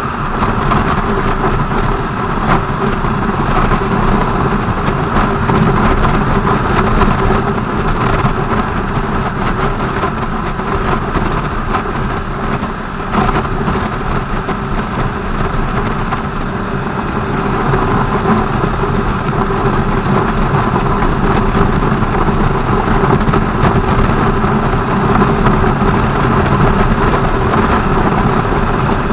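BMW R 1200 GS boxer-twin motorcycle engine running steadily under way, mixed with a constant rush of road noise. The sound dips a little about twelve seconds in and builds again a few seconds later.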